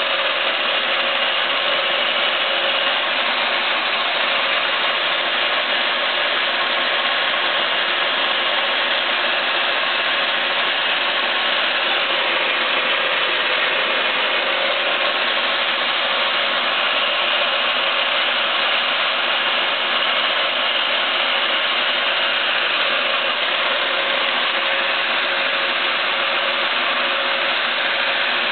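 Stanko 6T10 milling machine running steadily, its Sandvik face-milling head at about 800 rpm cutting across the face of an aluminium motorcycle cylinder head under power feed. A dense, even mechanical noise with a few faint steady tones running through it.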